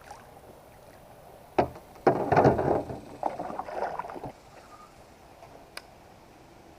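A sharp knock, then about two seconds of loud splashing water around a kayak.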